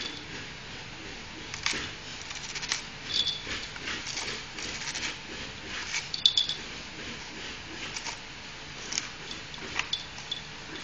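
A dachshund gnawing and tearing at a coconut's husk with its teeth: irregular short crunches and scrapes.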